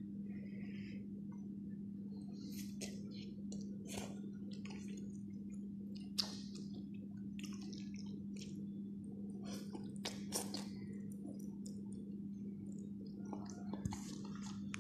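A person chewing and slurping spicy noodles: scattered wet smacking and sucking mouth sounds at irregular moments, the sharpest about six seconds in, over a steady low hum.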